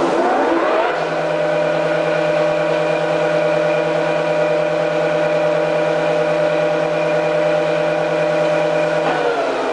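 FAT 630 straight-bed lathe running under power: the headstock drive rises in pitch as the spindle comes up to speed, then holds a steady geared hum. About nine seconds in, the pitch begins to fall as the spindle slows.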